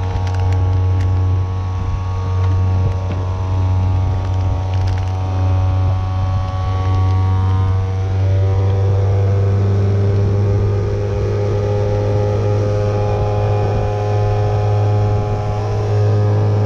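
FoodSaver vacuum sealer's pump motor running with a steady hum as it sucks the air out of a bag of meat before sealing. Its note shifts about halfway through, and it cuts off suddenly at the end.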